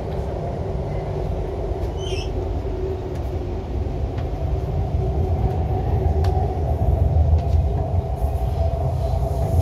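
Interior noise of an MTR Island Line Q-Train running underground: a steady low rumble with a humming drone, growing a little louder in the second half.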